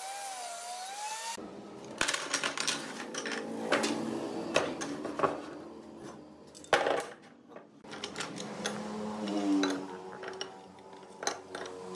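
A table saw cutting a board, its pitch wavering, stops abruptly about a second and a half in. Then come irregular sharp knocks and clinks as wooden strips and steel pipe clamps are handled on a wooden workbench, a few of them loud.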